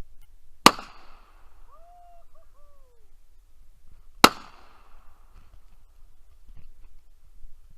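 Gunshots: two sharp reports about three and a half seconds apart, each with a short echoing tail, and a third right at the end. Between the first two come a few short pitched calls that rise and fall.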